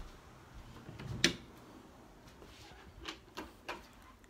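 Handling noise of a phone held close: a sharp knock about a second in, then three soft clicks near the end.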